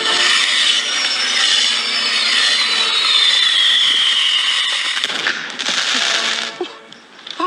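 A firework burning with a loud, harsh hiss and a whistle that slowly falls in pitch, for about five seconds. A shorter second burst of hiss follows, then a few small cracks near the end.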